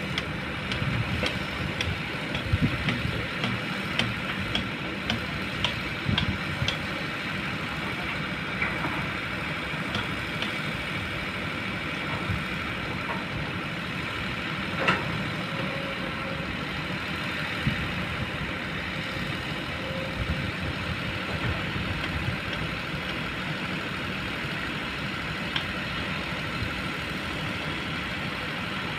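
Diesel engine of a Kobelco long-boom excavator running steadily, with scattered sharp clanks and knocks from the machine at work. The loudest knock comes about halfway through.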